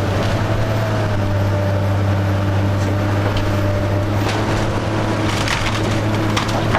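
A wooden house splintering and cracking as heavy machinery tears it down, the cracks coming thicker from about halfway through, over the steady hum of the machine's engine.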